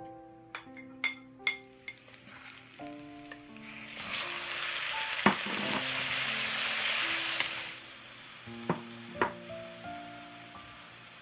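Chicken and garlic frying in hot oil in a steel wok. The sizzle swells about four seconds in and falls away near eight seconds, with a few sharp clicks of a wooden spatula against the wok.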